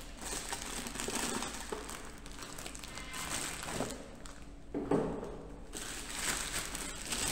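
Clear plastic wrapping crinkling as it is handled and pulled out of a cardboard box, in several rustling bursts.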